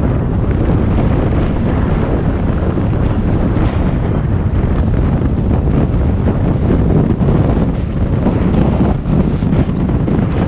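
Wind buffeting a GoPro's microphone on a motorbike moving at road speed: a loud, steady, low noise throughout.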